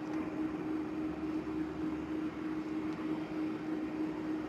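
A steady hum holding one low tone over a constant hiss, with no squishing or other sounds from the slime.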